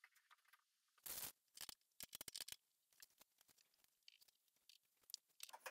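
Near silence: room tone, broken by a few faint clicks and rustles of hands at work, a cluster about a second in and more around two seconds in.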